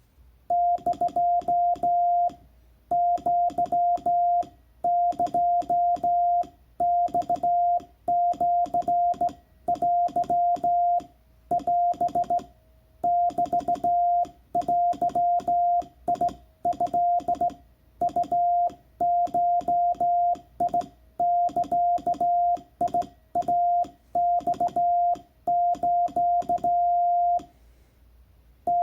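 Morse code sent by hand on a telegraph key and heard as the Icom IC-703's CW sidetone: a steady tone of about 700 Hz keyed on and off in quick dots and dashes, grouped into characters about a second long with short pauses between, and a click at each keying. The code spells out a New Year's greeting in Japanese wabun Morse.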